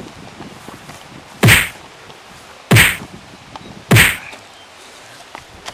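Three loud whacking blows, evenly spaced about a second and a quarter apart, from staged punches in a mock fight.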